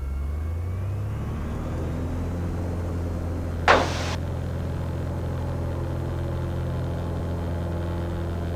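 Cessna 182's six-cylinder piston engine and propeller run up to full takeoff power, the pitch rising over the first couple of seconds and then holding steady as the takeoff roll begins. A brief short sound stands out about four seconds in.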